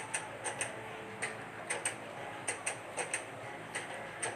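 Sharp ticking clicks, often in pairs, coming irregularly about three or four times a second.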